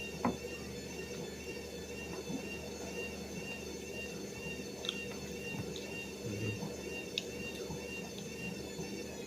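Quiet eating sounds: faint chewing with a few small clicks, over a steady background hum.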